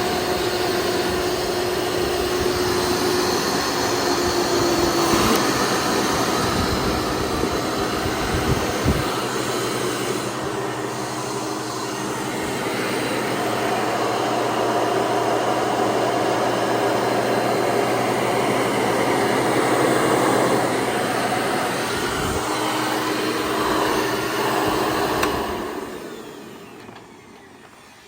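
Hoover Encore Supreme hard-bag upright vacuum running steadily, its motor now fitted with a twenty-blade fan, which replaced a broken seven-blade fan. Near the end it is switched off and winds down.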